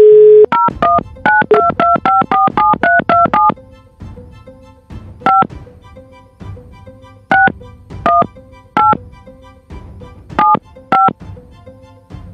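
Telephone touch-tone dialing: a steady dial tone stops half a second in, then a quick run of about a dozen two-note keypad beeps as a number is dialed. After that, single and paired keypad beeps come spaced out over a soft background music bed.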